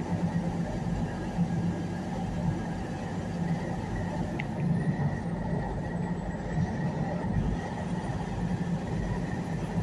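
Semi truck running at highway speed: a steady low diesel engine drone under even road noise, with a faint steady high whine.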